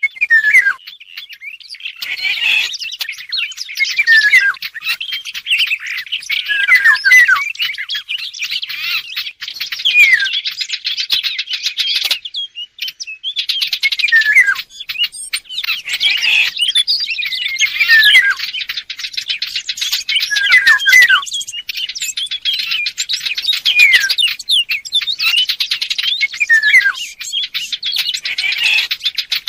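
A recording of Eurasian golden oriole song mixed with the song of the small warblers called fig birds. It is a dense, unbroken stream of chirps and twittering, with short falling whistled notes returning every two seconds or so.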